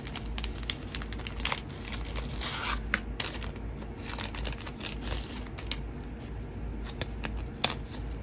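Clear plastic packaging sleeve being pulled and torn open by hand, crinkling, with many short sharp crackles.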